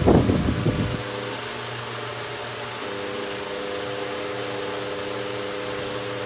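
Sharp microwave oven running, a steady hum with several steady tones, together with the whir of a wall fan. A loud burst of noise fills the first second, and the tones drop out for a moment before coming back about three seconds in.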